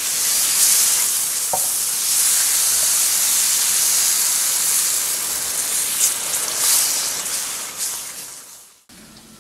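Semolina cooked in butter sizzling in a hot frying pan as cold water is worked in and the mixture is stirred with a silicone spatula, with a few scrapes of the spatula. The sizzle fades and cuts off shortly before the end.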